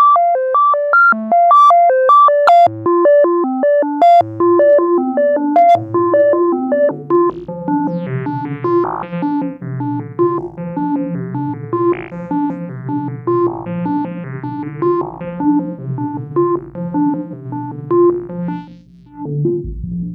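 Eurorack modular synthesizer playing a clocked, stepped sequence of short plucked notes through a Xaoc Devices Zagrzeb four-pole filter, with reverb. Lower notes join about four seconds in, and the pattern grows denser.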